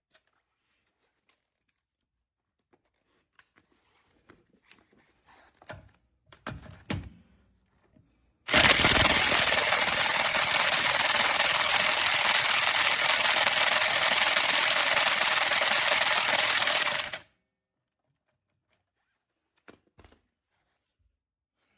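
Corded 1/2-inch impact wrench (Porter-Cable PCE211) hammering steadily for about nine seconds. It starts abruptly and stops suddenly, after a few faint handling clicks.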